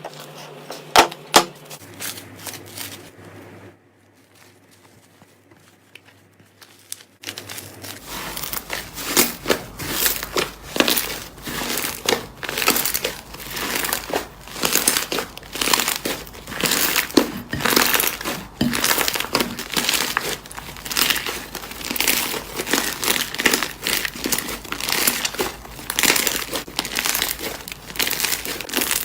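Slime being squeezed and pressed by hand. There are a few clicks, then a quiet stretch, then from about seven seconds in a continuous run of crackling clicks and pops.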